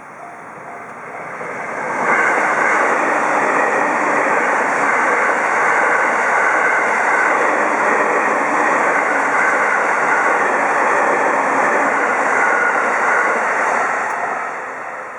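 A train passing through a level crossing: the rumble of wheels on rail swells over the first two seconds, stays loud for about twelve seconds, then eases off near the end. The crossing's repeating warning bell is heard at the start before the train drowns it out.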